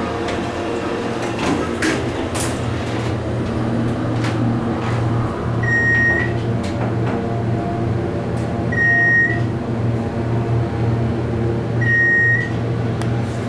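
Elevator car in motion: a steady low hum of the machinery and cab fan. Short high beeps sound about every three seconds, with a few light clicks in the first seconds.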